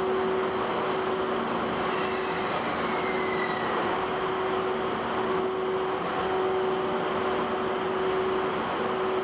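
EF81 electric locomotive hauling the Twilight Express, rolling slowly alongside the platform with a steady electrical hum over the running noise. A faint falling squeal comes about two seconds in.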